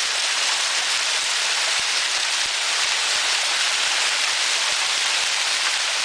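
Steady, loud rush of falling or flowing water, a constant hiss strongest in the upper range.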